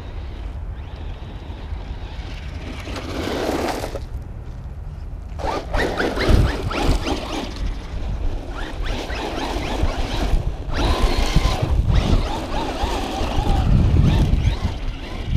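Traxxas Rustler 4x4 electric RC truck being driven hard on loose dirt: the motor whine rises and falls in several bursts as the throttle is worked, with tyres scrabbling on the dirt. Heavy wind rumbles on the microphone throughout.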